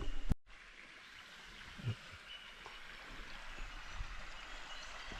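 Faint, steady outdoor background noise, with a soft thump about two seconds in.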